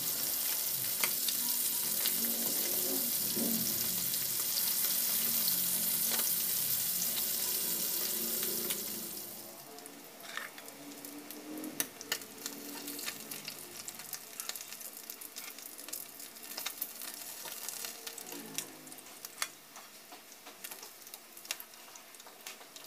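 Galunggong (round scad) frying in hot oil in a pan: a steady sizzle that drops off sharply about ten seconds in. After that, a plastic spatula scrapes and clicks against the pan as the fried fish are lifted out.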